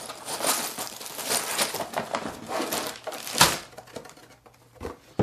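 Cardboard LEGO box being opened and tipped out, its sealed plastic bags of bricks rustling and crinkling as they slide out, with a sharp knock about three and a half seconds in as they drop onto the table.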